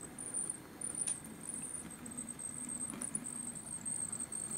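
Viessmann model tipper truck with trailer driving along the layout road: a faint steady hum from its small electric motor, with two faint clicks, about a second in and near three seconds.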